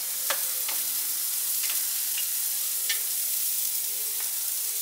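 Beef short ribs and fajita meat sizzling on the grate of a Santa Maria grill over a post oak and charcoal fire, a steady hiss, with a few sharp clicks scattered through it.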